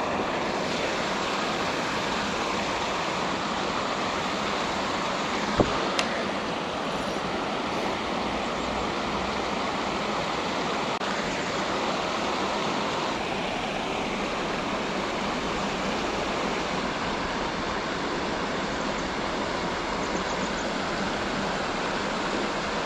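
Steady rush of flowing water, an even hiss that does not change. A sharp click sounds about five and a half seconds in, with a fainter one just after.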